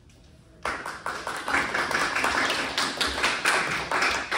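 Audience applauding: a sudden start a little under a second in, then dense, steady clapping.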